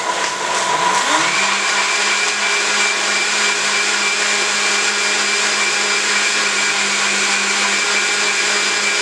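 Professional countertop blender switched on and running at full speed, blending liquid salad-dressing ingredients; the motor's pitch rises over about the first second, then stays steady.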